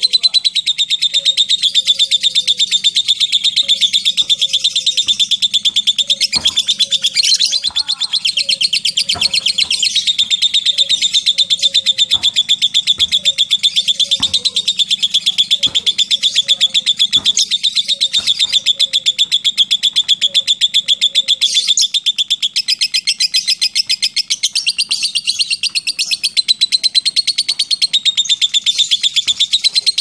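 Lovebird's long 'ngekek' chatter: an unbroken run of very fast, sharp ticking notes, high-pitched, that keeps going without a pause and eases briefly about two-thirds of the way through.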